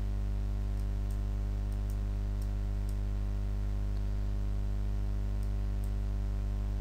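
Steady electrical mains hum from the recording setup, with a dozen or so faint, scattered clicks.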